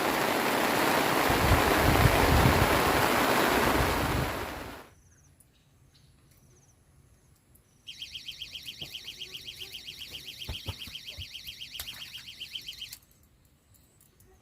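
Steady rain hiss that cuts off abruptly about five seconds in. Later, a rapid, even, high-pitched pulsing sound runs for about five seconds.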